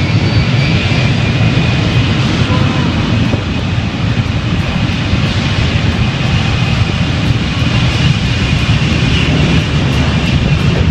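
Ilyushin Il-76 transport aircraft's four turbofan engines running loud and steady as it moves along the runway: a deep rumble with a thin high whine over it.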